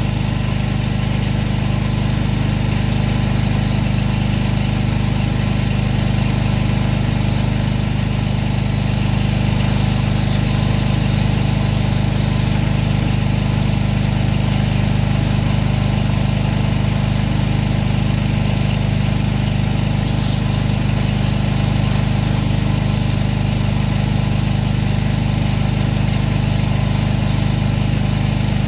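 Gas-powered pressure washer's engine and pump running steadily at a constant speed.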